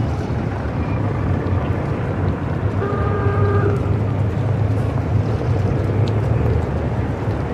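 Steady low rumble of city street traffic, with a brief pitched tone about three seconds in.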